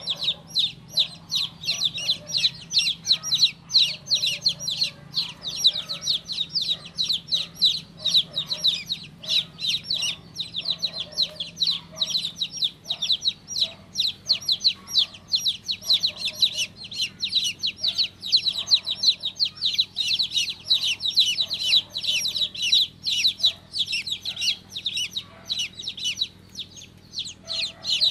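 Several baby chicks chirping continuously, a dense chorus of short, high peeping calls many per second.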